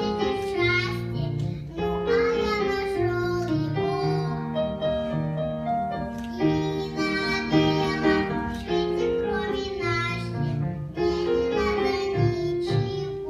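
A child singing a melodic song over instrumental accompaniment, in held, evenly phrased notes.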